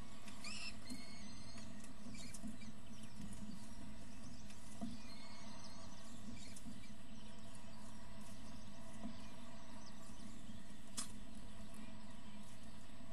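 Faint, thin, high squeaking calls of downy raptor chicks begging while an adult feeds them in a nest box, over the steady hum of the nest-box camera's microphone. A single sharp click comes about eleven seconds in.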